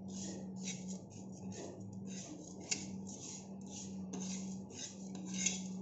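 Steel spoon scraping and stirring dry moong dal lentils around a pan in quick repeated strokes, about three a second, with one sharper click near the middle, as the dal is dry-roasted. A steady low hum runs underneath.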